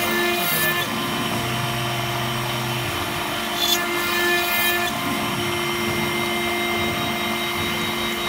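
A CNC router spindle with a small cutter milling a brass plate under a coolant stream. It makes a steady motor whine and hum, with short bursts of harsher high-pitched cutting noise about half a second in and again from about three and a half to five seconds in.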